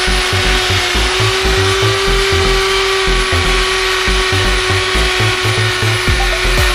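Electric hand drill running at a steady high whine, spinning a buffing wheel against an aluminium motorcycle engine block to polish it; the whine starts to drop in pitch at the very end. Background music with a steady beat plays underneath.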